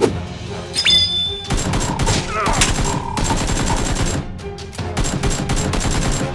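Rapid automatic gunfire in two bursts, one starting about a second and a half in and another near the end, over background music.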